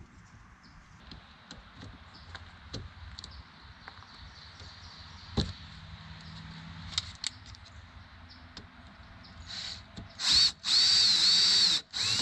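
Light clicks and knocks of lock parts being handled. Then, near the end, a power drill drives the new lock's mounting screws: a short burst, then a longer run whose whine rises and falls in pitch, with the screws only started, not fully tightened.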